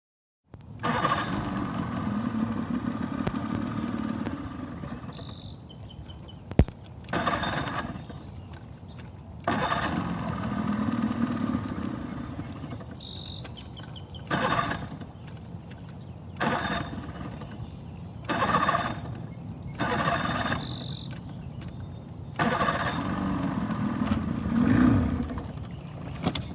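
Boat engine catching and running a few seconds at a time, then dying away, about seven times over, the first run the longest with its speed wavering. The engine won't stay running, which the owner puts down to it not pulling fuel from the tank well enough. A sharp click sounds about a quarter of the way in.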